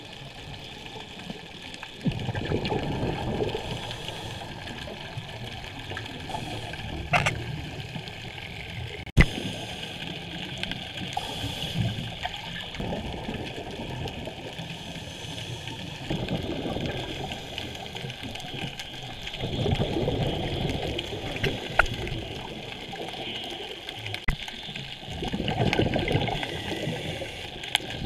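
Scuba diver's breathing heard underwater: a burst of bubbling from the regulator's exhaust every four to five seconds over a steady hiss. Two sharp clicks a few seconds in.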